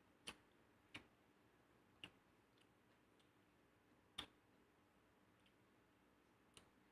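Faint eating sounds of a meal taken by hand from a plate: about five sharp, irregularly spaced clicks and a few fainter ticks over near silence.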